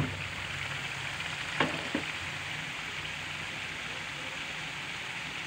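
Red chili balado sauce sizzling and bubbling steadily in a wok on the stove, frying down. About a second and a half in there are two sharp knocks close together.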